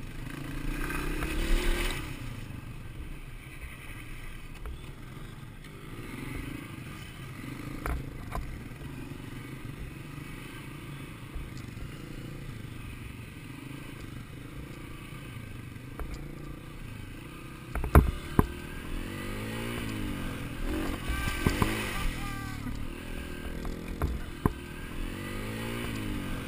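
Dirt bike engine heard from the rider's seat, running and revving up and down as the bike rides over rough dirt. A sharp knock about 18 seconds in, followed by repeated quick rises and falls in engine pitch.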